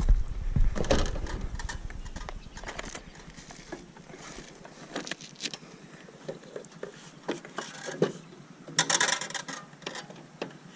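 Scattered clicks, light rattles and scrapes of strands of Christmas lights being handled and taken down, with a longer rustling scrape about nine seconds in.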